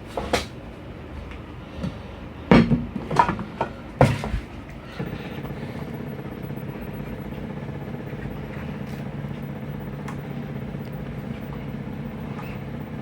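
A few sharp knocks, then from about five seconds in a steady motor hum with several held tones as the microwave tomograph prototype's motor drives one of its arms.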